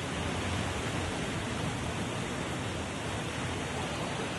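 Muddy floodwater rushing down a street in a fast torrent, a steady, unbroken roar of churning water.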